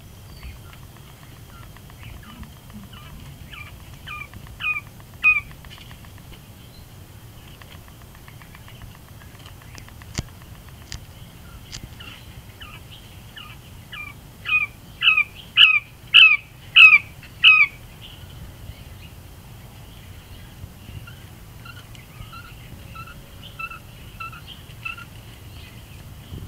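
Male Coturnix quail calling: a couple of sharp notes about five seconds in, then a quick run of about seven louder notes, each dipping in pitch, around the middle.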